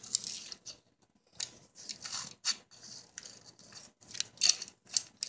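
A string of Christmas lights being handled, its wires and small plastic bulbs rustling and clicking together in short bursts.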